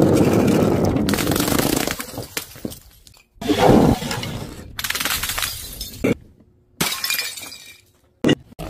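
Glass bottles dropping onto stone paving tiles and shattering, several loud crashes one after another, each a second or two of breaking glass and scattering shards.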